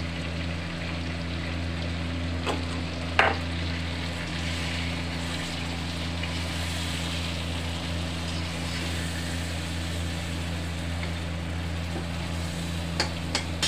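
Chicken sizzling in hot oil in a kadhai as a white cashew, coconut and cardamom paste is poured in and stirred, over a steady low hum. A few sharp knocks of the spatula on the pan come about three seconds in and twice near the end.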